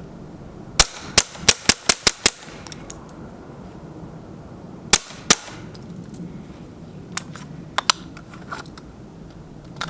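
Suppressed Ruger Mark IV .22 LR pistol firing a rapid string of about seven shots starting about a second in, then two more shots about five seconds in. A few fainter clicks follow near the end.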